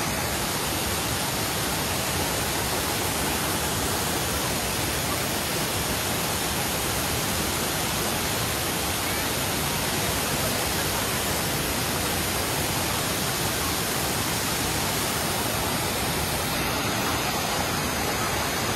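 Waterfall pouring into a rocky river: a steady, full rush of falling water.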